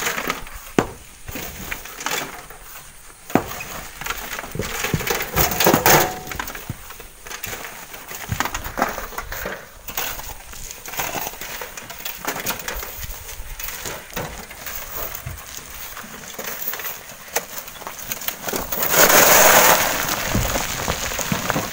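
Stones knocking and clinking and shovels scraping sand, with scattered sharp knocks. Near the end a louder rushing noise runs for about two seconds as loose stones and sand slide down the slope.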